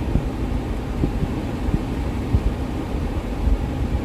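Car engine idling, a steady low rumble with small irregular low thumps.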